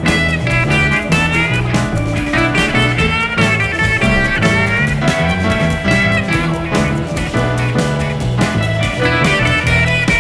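Background music: guitar-led blues-rock with bending lead notes over a steady beat.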